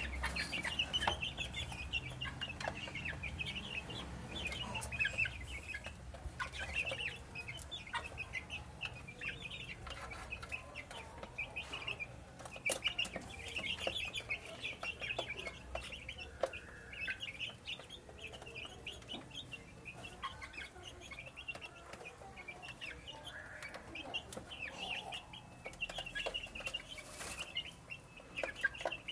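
A flock of half-grown chicks peeping continuously in many short, high chirps while they feed, with scattered sharp taps of beaks pecking at the feed dish and wooden floor.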